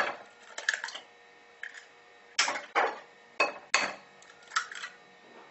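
Eggs knocked against a ceramic bowl and their shells broken open: a string of sharp knocks and cracks, some in quick pairs.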